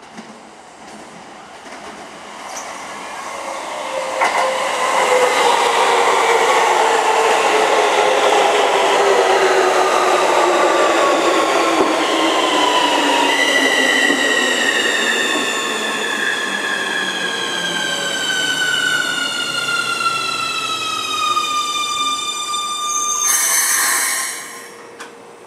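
Keikyu New 1000 series electric train pulling in and braking to a stop: a heavy rumble of wheels on rail, then the Siemens VVVF inverter whine in several tones falling steadily in pitch as the train slows. A short burst of hiss comes near the end as it halts.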